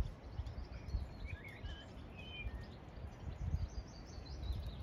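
Small songbirds chirping and trilling in short high phrases, over an uneven low rumble of wind buffeting the microphone.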